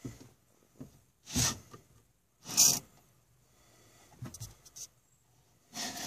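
Short effortful breaths and grunts while fumbling at the latch of a pickup truck's sliding rear window, with a few small latch clicks, then a steady rasping rush near the end as the glass starts to move.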